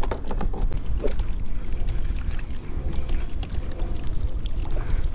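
Wind buffeting the microphone on open water, a steady low rumble, with a few light clicks in the first second.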